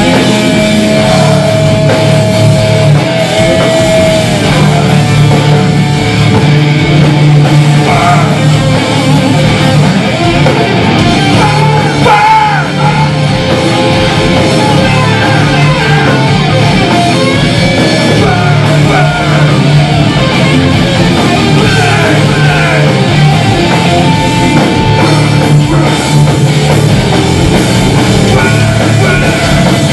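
A heavy metal band playing live and loud, with distorted electric guitars, bass and a drum kit pounding on without a break.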